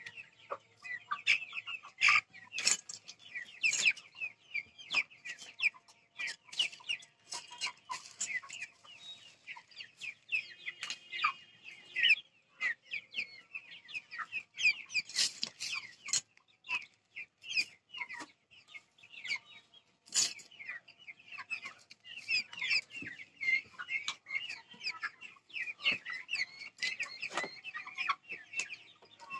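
A large flock of Vanaraja chickens clucking continuously, many short overlapping calls at once, with frequent sharp clicks mixed in.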